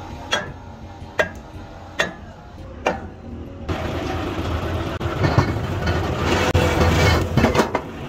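Four sharp metal-on-metal knocks, a little under a second apart. About four seconds in, a hydraulic press starts running with a low hum and rattle as its ram pushes down on the breaker's cylinder, with a few clanks near the end.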